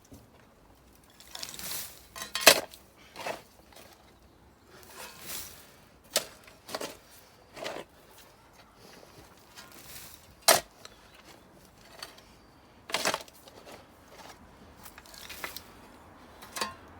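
Spade digging into soil and rubble: sharp strikes of the blade several seconds apart, with short scrapes of earth between.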